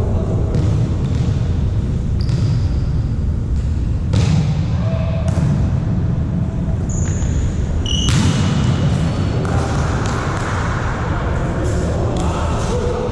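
Volleyballs being hit and bouncing on a hard court in a large echoing hall, a series of irregular thumps over a steady background din, with a few short squeaks of sports shoes.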